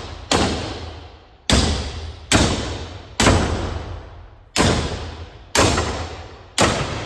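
Hammer blows on metal parts of a car's rear axle assembly, seven strikes at roughly one a second, each ringing out before the next, knocking a part loose.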